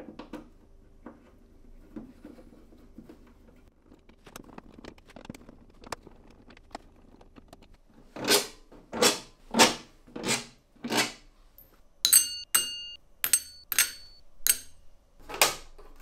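Hands working on a laser cutter's sheet-metal housing: a few faint knocks, then five quick scraping swishes about a second apart, a cluster of sharp clicks with short metallic rings, and one more swish near the end.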